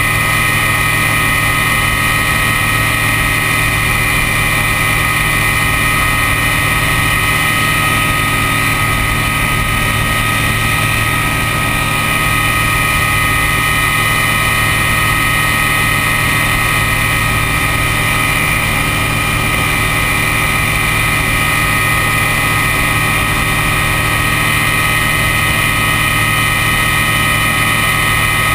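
Ultralight trike's engine and propeller running steadily in cruise flight: a constant drone with a steady high whine, under a rush of wind.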